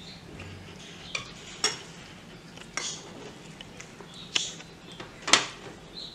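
Metal spoon clinking and scraping against a glass dish and glass cup while scooping set mousse: about five short clinks, the loudest a little after five seconds in.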